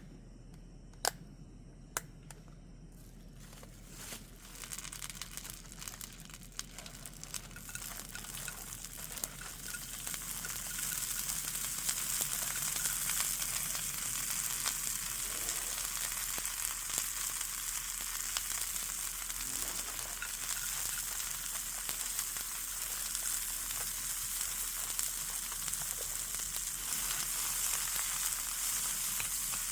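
Food sizzling and frying in a hot pan. A few sharp clicks come in the first two seconds, then the sizzle grows louder over several seconds and runs on steadily.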